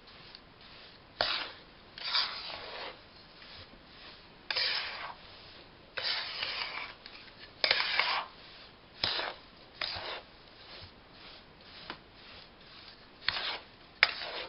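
Steel spatula scraping and stirring through a crumbly mix of roasted gram flour and powdered sugar in a steel kadhai, in about a dozen irregular scraping strokes.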